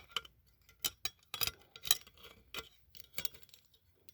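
Handling noise: a series of short, sharp clicks and taps, irregularly spaced about half a second to a second apart, as small objects are handled and set down.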